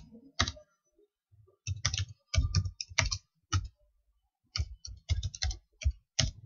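Typing on a computer keyboard: irregular runs of sharp keystrokes with short pauses between them.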